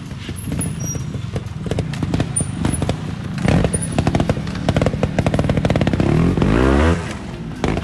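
Trials motorcycle engine revving under throttle, getting louder after a few seconds, with a quick rise and fall in pitch near the end.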